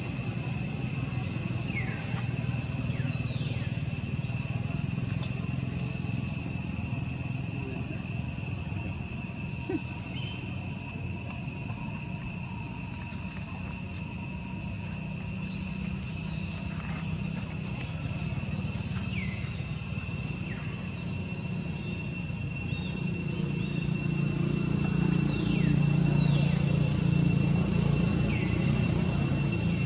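Steady insect chorus holding two even high tones, with a short falling call now and then above it. A low hum runs underneath and grows louder near the end.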